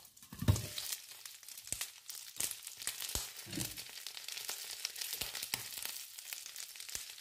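Bean patties frying in hot oil in a pan: a steady sizzle with frequent small crackling pops. There is a knock about half a second in as the glass lid is lifted off.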